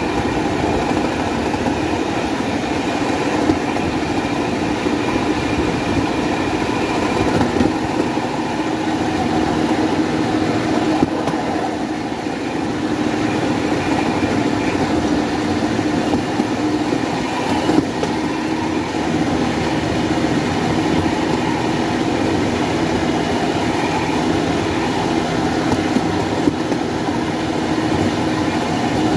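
Motorcycle engine of a motorodillo, a home-built rail trolley, running steadily as the trolley rolls along the rails, with a few isolated sharp clicks from the track.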